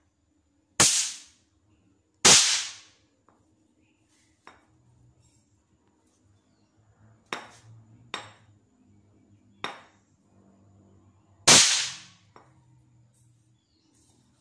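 Toy caps going off as a metal rod strikes them against a cement floor: three sharp bangs, about a second in, a second and a half later, and again about eleven seconds in. Several lighter clicks and taps of the rod come between the bangs.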